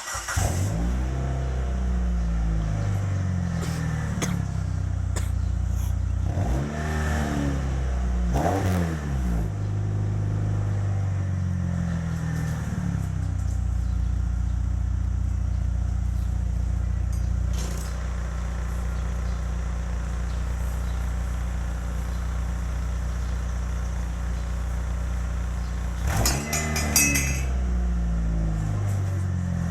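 Chrysler PT Cruiser's four-cylinder engine running through an aftermarket exhaust muffler. It is blipped in short revs several times in the first half and once more near the end, and settles back to a steady idle in between.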